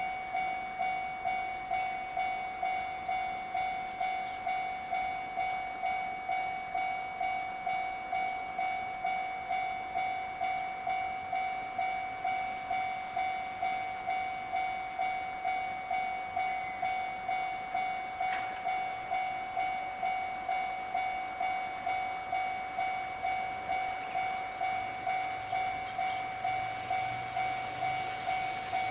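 Japanese level-crossing warning bell ringing, a steady electronic ding repeated evenly a little under twice a second. A low rumble of an approaching train comes in near the end.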